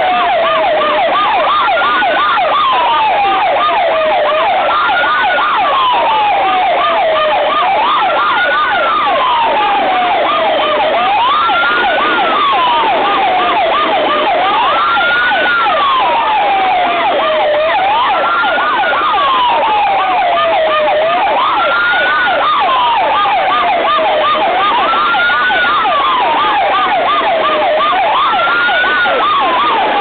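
Fire truck and ambulance sirens sounding together and loud. A slow wail falls in pitch over about two seconds and then sweeps quickly back up, repeating about every three and a half seconds, over a fast yelp of several short sweeps a second.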